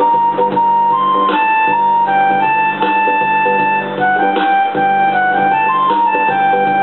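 Yamaha portable keyboard playing a single-note melody in held, steady tones, the notes changing every half-second or so, over a steady beat with repeating low chords.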